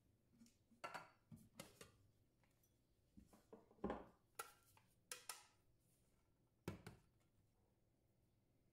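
About eight light knocks and clicks of kitchenware being handled: a food processor's plastic lid taken off its stainless steel bowl and a glass bowl knocking against it. The loudest knock comes a little under four seconds in.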